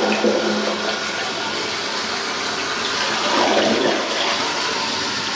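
Toilet flushing: a steady rush of water through the bowl, swelling about three and a half seconds in. It is a test flush of a freshly reset toilet, checking for water seeping out under the base.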